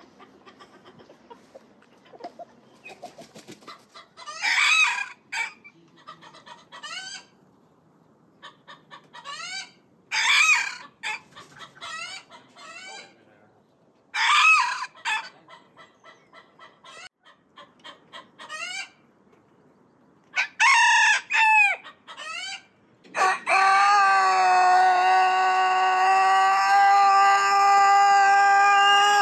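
Japanese bantam (Chabo) roosters crowing: several short crows a few seconds apart, with quieter short calls between them. Near the end a Bosnian Longcrower rooster begins one very long, steady held crow, the drawn-out crow this breed is kept for.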